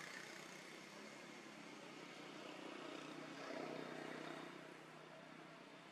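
Faint steady background hum and hiss, like a distant engine, swelling briefly a little past the middle.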